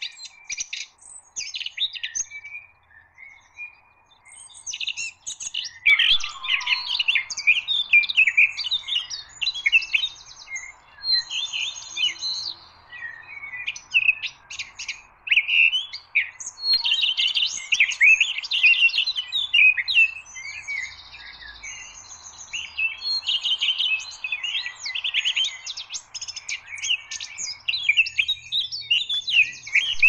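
Small songbirds singing: sparse high chirps at first, then from about six seconds in a dense, near-continuous run of varied chirps and warbling phrases over a steady hiss that drops out near the end.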